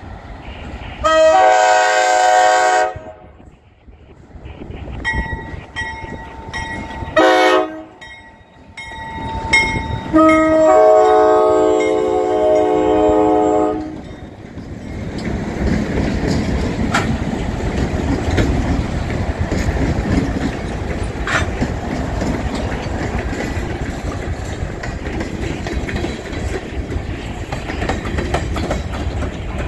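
ALCO diesel locomotives' air horn blowing for a grade crossing: long blasts and a short one, ending in a long blast that stops about 14 seconds in. Then the locomotives run past with a low rumble, and covered hopper cars roll by, their wheels clicking over the rail joints.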